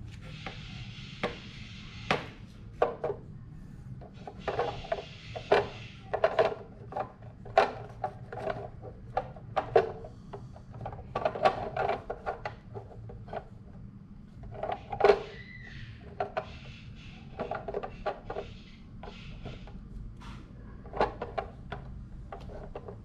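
Marbles rolling down a HABA wooden marble run, knocking and clacking irregularly against the wooden track pieces, with stretches of rolling rattle over a low steady hum.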